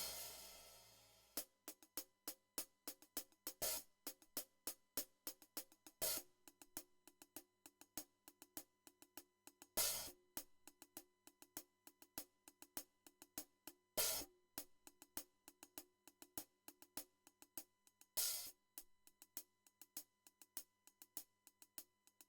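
A recorded drum kit playing back quietly, mostly cymbals and hi-hat. A cymbal hit rings out at the start. Then quick, even hi-hat ticks run on, with a louder crash-like hit about every two to four seconds.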